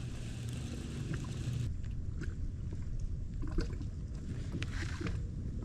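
Steady low rumble of wind and water around a kayak on a lake, with a few faint clicks and taps as a baitcasting reel is handled.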